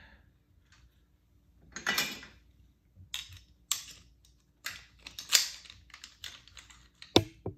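Metal parts of a Hurst shifter clicking and scraping as the shift spring is worked into the shifter body with pliers. The sounds are irregular sharp clicks, one or two a second, with a longer scrape about two seconds in.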